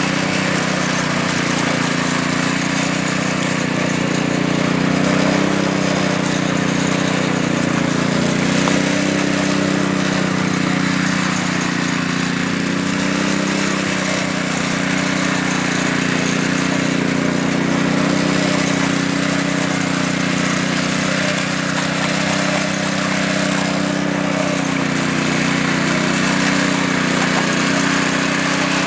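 Power trowel's small engine running steadily at an even speed, a constant drone.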